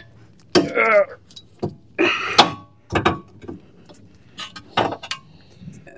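Steel pry bar levering against the lower control arm to separate the lower ball joint: a string of irregular sharp metal knocks and clanks.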